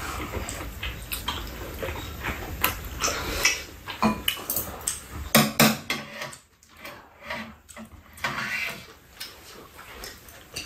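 Eating sounds: a spoon and chopsticks clinking against ceramic bowls of rice-cake soup in scattered, irregular taps, with slurping and chewing.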